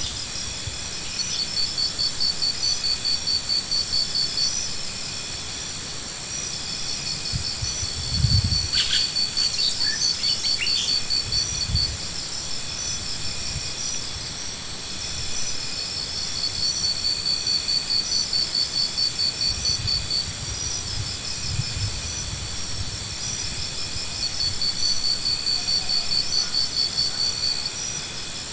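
Insects trilling: high, rapidly pulsed phrases a few seconds long that come and go repeatedly over a steady high insect drone. A dull low thump comes about eight seconds in and a smaller one about four seconds later.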